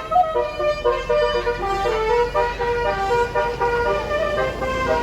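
Basuri 'telolet' multi-note bus horn playing a melody: several horn tones sounding together and stepping up and down in pitch in quick succession.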